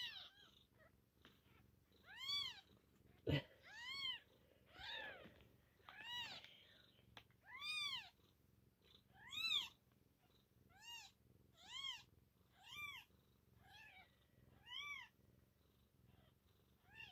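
Newborn kittens mewing: about a dozen thin, high-pitched cries, each rising and falling in pitch, coming roughly once a second. A single soft knock about three seconds in.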